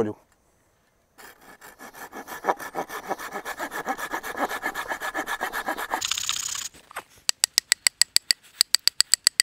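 A saw cutting a notch into a wooden log with steady back-and-forth strokes. Then a brief hiss, followed near the end by a run of quicker, sharper strokes.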